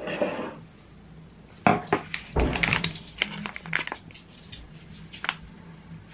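Tabletop handling: a quick cluster of knocks and clinks of mugs being set down, mixed with the rustle of a paper drip-bag coffee packet, loudest about two seconds in, then a few lighter clicks.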